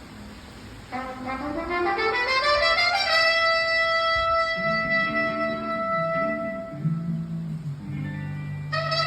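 Background music: a pitched note glides upward for about two seconds, then is held steady over a lower, moving bass line.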